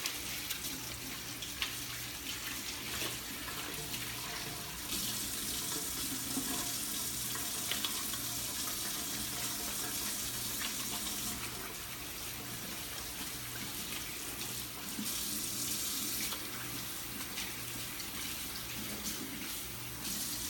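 Kitchen tap running into a sink as hands are washed under it. The steady rush of water swells louder for several seconds in the middle and again briefly later as the flow and hands shift.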